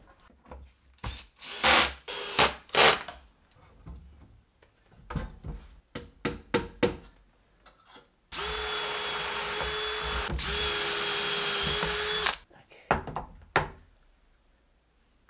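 A few loud wooden knocks as a wooden tabletop is set onto a cast-iron sewing-machine treadle stand, then a power drill runs steadily for about four seconds, with a brief break midway, fastening the top to the stand from beneath.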